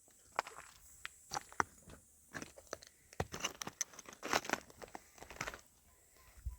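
Irregular crunching and crackling of dry material being handled, sparse at first and busier from about two seconds in, then dying away near the end.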